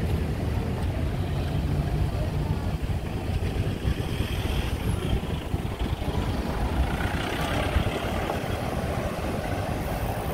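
Street ambience dominated by a motor vehicle engine running steadily nearby with a low rumble. In the second half the rumble gives way to a broader traffic hiss.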